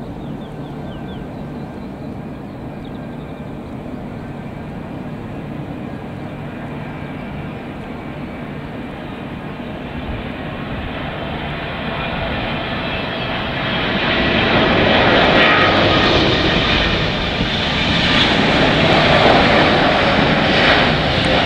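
Boeing 777-200ER's twin jet engines on landing approach: a steady jet rumble and whine that grows as the airliner comes closer, swelling sharply about two-thirds of the way through and staying loudest to the end as it passes close and low.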